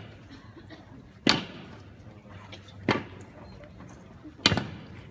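Slow, evenly spaced sharp knocks, one about every one and a half seconds, each dying away quickly, over a low background hum.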